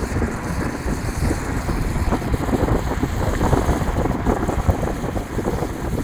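A car driving, with wind rushing and buffeting the microphone over steady road noise.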